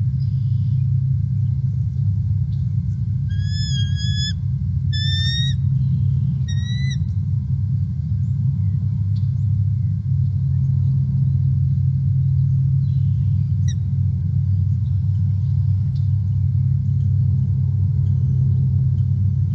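A steady low rumble, over which three high, slightly wavering whistled calls come a few seconds in, about a second apart: bald eagle calls.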